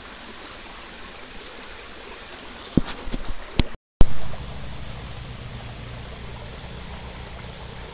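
Shallow rocky stream running steadily over stones, with a few sharp clicks about three seconds in. The sound cuts out briefly and returns with a loud pop about four seconds in, after which the water is louder and carries more low rumble.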